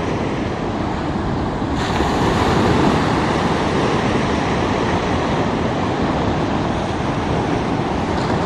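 Ocean surf breaking and washing up the beach: a steady rushing that grows a little louder about two seconds in.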